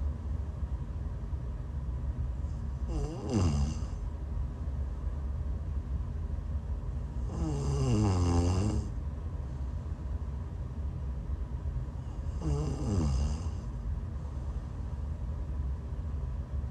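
A woman snoring while sick: three snores about four to five seconds apart, each a pitched rasp that glides in pitch with a breathy hiss, over a steady low rumble.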